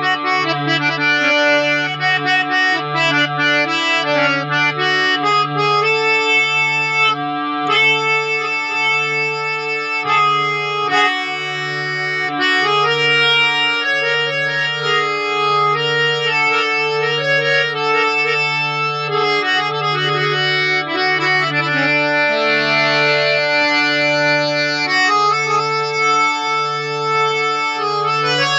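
Harmonium being played: a reedy melody and chords over a low held drone note that swells and dips evenly, about once every second and a quarter.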